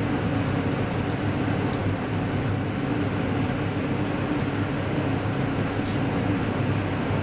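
Upgraded 1985 KONE inclined elevator car travelling along its sloped shaft: a steady low rumble and hum from inside the moving car, with a few faint ticks.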